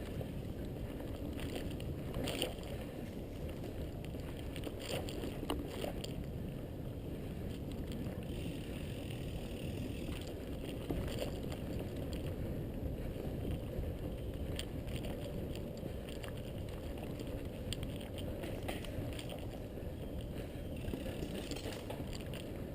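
Mountain bike riding along a dirt trail: steady rolling rumble from the tyres, with scattered clicks and rattles from the bike over bumps.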